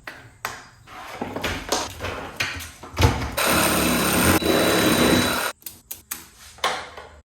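Tools being handled in a workshop: knocks and clatter, with a power tool running for about two seconds in the middle.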